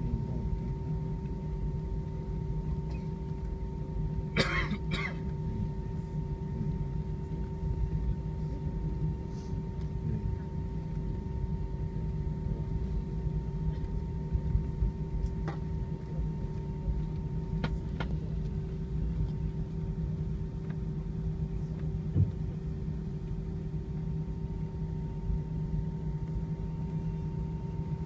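Cabin noise of an Airbus A320 taxiing after landing: a steady low rumble with a constant hum, the engines at idle. A short cough, twice in quick succession, about four seconds in, and a few faint clicks and a knock later.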